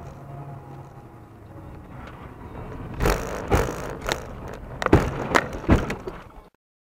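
Car's engine and road noise heard from inside the cabin, then from about three seconds in a run of about six heavy thumps and jolts as the car runs off the road over snow banks. The sound cuts off abruptly near the end.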